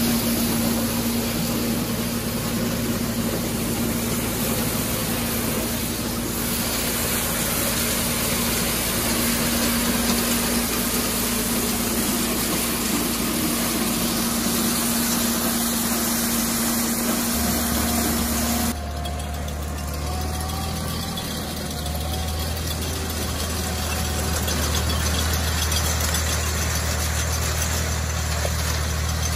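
Tractor engine running steadily under load, driving a corn sheller as it shells ear corn. About two-thirds of the way in, the sound cuts abruptly to a deeper-sounding tractor pulling a mounted corn picker through standing corn.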